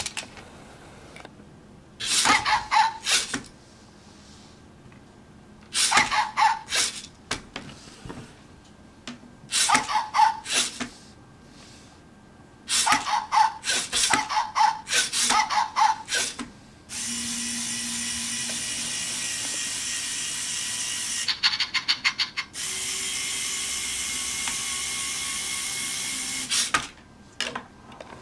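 LEGO Mindstorms EV3 robot puppy's servo motors and plastic gears whirring and clicking in short bursts as it steps back and forth. This is followed by about ten seconds of steady noise, broken once by a brief burst of clicking.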